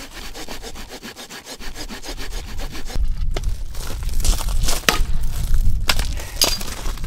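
A hand saw rasps through a log in quick, even strokes. About three seconds in this gives way to several sharp axe strikes splitting wood on a chopping block, with wind rumbling on the microphone.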